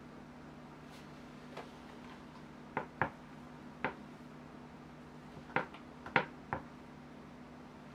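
Large knife cutting through a slab of brownies on a wooden cutting board: about eight sharp clicks and taps, several in quick pairs, as the blade cracks the crinkly top and presses down through it.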